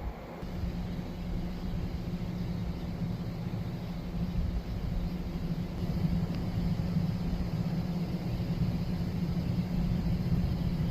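A large engine running steadily, a low droning hum.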